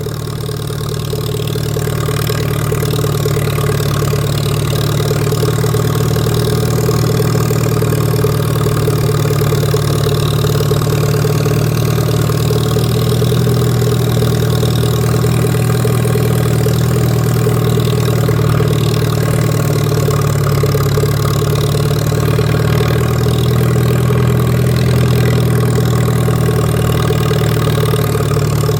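Lawn mower engine running steadily while cutting grass, getting louder over the first couple of seconds and then holding an even pitch.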